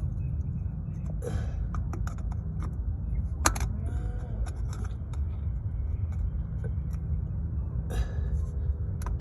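Small clicks and scrapes of hands and a tool working at a stubborn plastic wiring connector to pry it loose, with one sharp click about three and a half seconds in and a few more near the end, over a steady low rumble.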